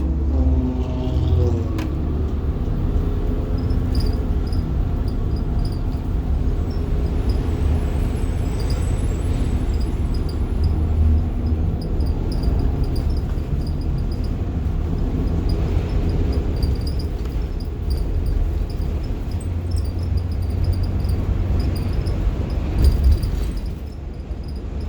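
Inside the cabin of a 1990 Blue Bird All American school bus, its rear-mounted diesel engine pulls the bus along with a steady low rumble. The engine note rises in the first couple of seconds. Small squeaks and rattles from the bus body come through throughout.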